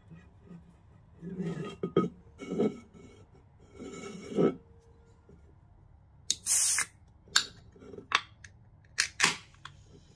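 An aluminium Coca-Cola can is handled and knocked against a wooden floor. About six seconds in, its pull tab is cracked open with a short hiss of escaping gas, the loudest sound here. A few sharp clicks of the tab being worked follow.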